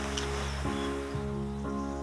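Background music: sustained chords that change about every half second.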